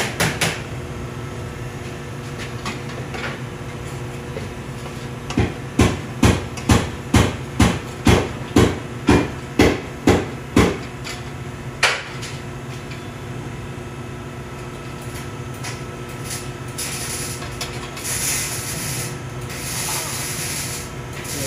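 About a dozen hammer blows at roughly two a second, followed by one more a second later, over a steady background hum. A hiss comes and goes near the end.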